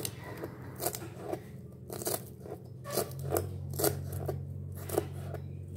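Kitchen knife chopping a bunch of soup celery (Chinese leaf celery) on a cutting board: a string of crisp cuts, roughly two a second.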